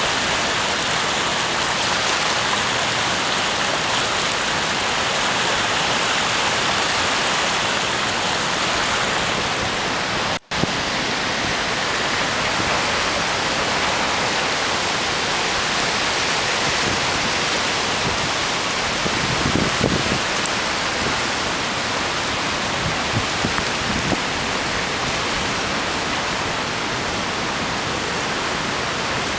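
Flooded river rushing through rapids below a dam: a steady, dense rush of fast water. The sound drops out for an instant about a third of the way in.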